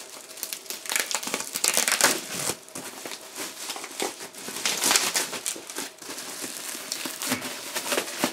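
Bubble-wrap packing crinkling and rustling as it is handled, a dense irregular run of crackles.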